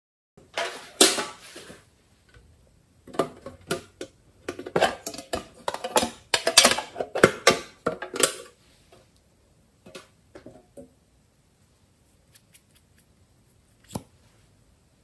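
Hard plastic clicking and rattling as a plastic toy coin bank is handled and opened: a dense run of clicks and clatters for most of the first eight seconds, then a few scattered small clicks and one sharp click near the end.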